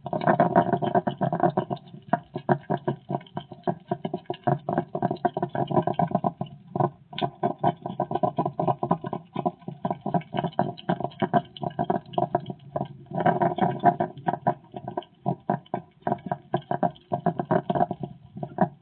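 A hedgehog making a rapid run of short, pulsing sounds in bouts, with brief breaks about seven and fifteen seconds in.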